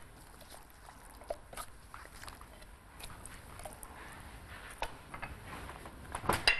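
Raw chicken pieces handled in gloved hands on a plate: faint, scattered light clicks and soft handling noises. A sharper clatter comes just before the end.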